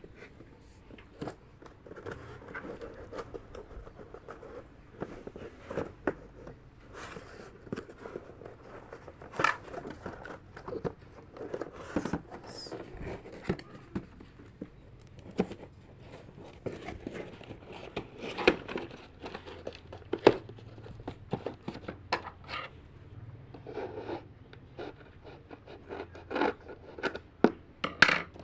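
A parcel being opened and handled: packaging rustling and crinkling, with scattered clicks, scrapes and tearing.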